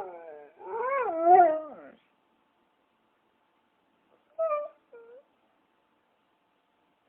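Dog vocalising: a wavering, whining howl lasting about two seconds, then two short yelps a little later.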